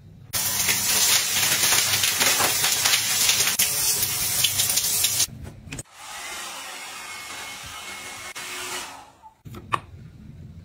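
A shower runs in a loud steady hiss for about five seconds. It cuts to a handheld hair dryer blowing more quietly for about three seconds. A single sharp click near the end is a glass cosmetic bottle being handled.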